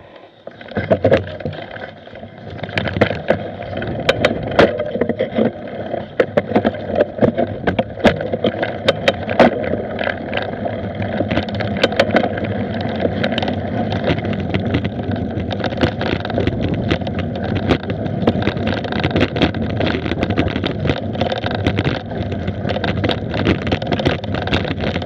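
Mountain bike ridden fast down a dirt forest trail: a steady rumble and rattle of tyres and frame, broken by frequent sharp knocks over bumps and roots.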